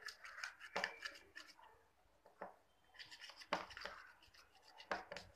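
Plastic spoon stirring thick slime in a plastic bowl: irregular scrapes and clicks of spoon against bowl, loudest about a second in, halfway through and near the end.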